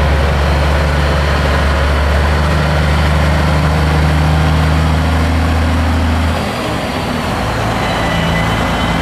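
Diesel engine of a Peterbilt semi tractor with tall exhaust stacks, rumbling loudly as the truck drives slowly past. A little over six seconds in, the deep steady engine note drops off and changes to a different pitch.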